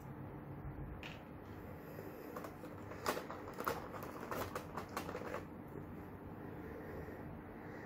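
Small plastic clicks and taps as tiny figure parts are handled and lifted from a clear plastic blister tray, a quick run of them from about two to five seconds in, over a faint steady hum.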